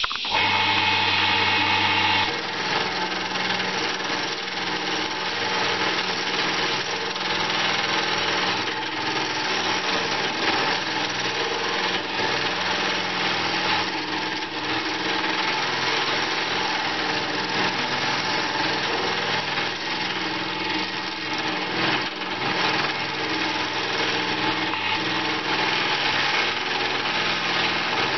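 Small wood lathe's motor running, and about two seconds in a turning chisel starts cutting into a spinning Banksia seed pod: a continuous scraping over the steady motor hum.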